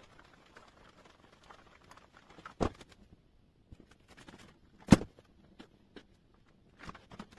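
Dumbbells knocking as they are handled, with a sharp knock about two and a half seconds in and a louder one about five seconds in, then a few softer knocks near the end, over faint rustling.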